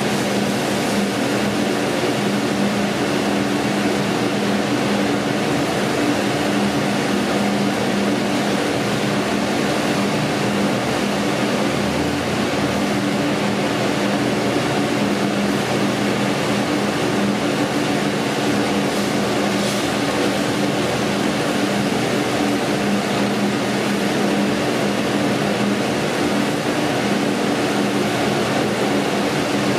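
Steak sizzling on a grill: a steady hiss over a low, even hum.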